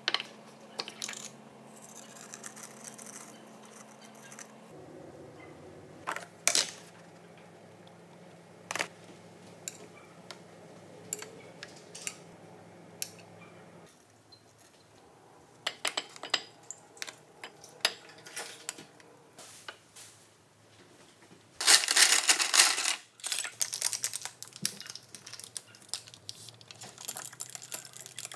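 A run of kitchen handling sounds: sharp taps and clicks of containers and dishes on a countertop, with a loud rushing noise lasting about a second around two-thirds of the way through. Near the end come quick clinks of a spoon stirring a drink in a glass mug.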